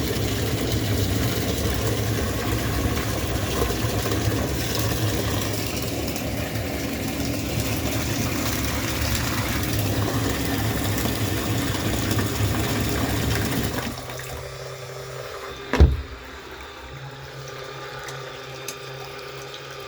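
Small portable washing machine running a rinse on a sponge filter: water churning over the hum of its motor. The sound drops off about fourteen seconds in, leaving a quieter hum, with a single knock shortly after.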